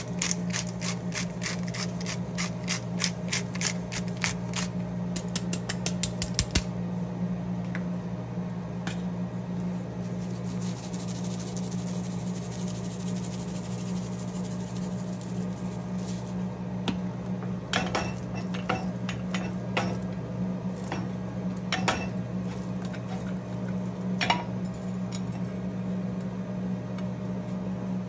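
Wooden pepper mill grinding black pepper, rapid clicking at about four or five clicks a second for the first six seconds or so. Later comes a short hiss of seasoning shaken from a shaker jar, then scattered clicks and taps as the raw burger patties are seasoned and handled. A steady low hum runs underneath.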